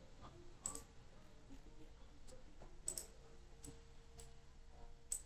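Scattered computer mouse clicks, about six, sharp and short, over a faint steady low hum.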